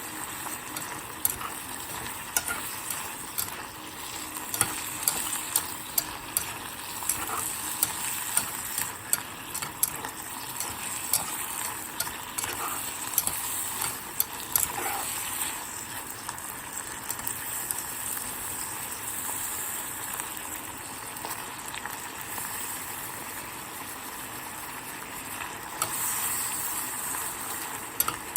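Food sizzling in a pot as sugar cooks down into caramel colour, with a spoon repeatedly clicking and scraping against the pot while stirring. The clicks come thickest in the first half, then the sizzle carries on more evenly.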